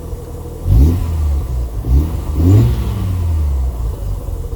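A 1990 Mazda RX-7's two-rotor rotary engine is revved up three times in quick succession and then drops back to a steady idle. The throttle is blipped to bring down a high idle.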